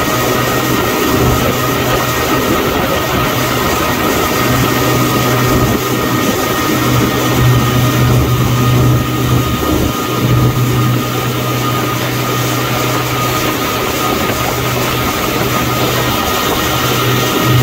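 Motorboat running at towing speed, its engine a steady drone under the rush and splash of the churning wake.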